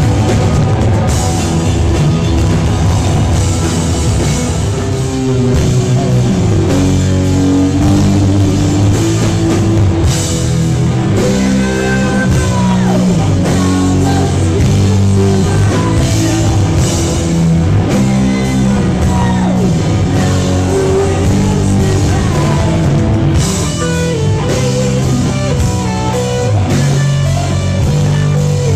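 Rock band playing loudly live, with electric guitar and drum kit.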